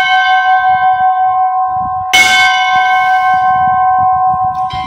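A bell struck twice, about two and a half seconds apart, each strike ringing on with a clear, slowly fading tone that carries over into the next.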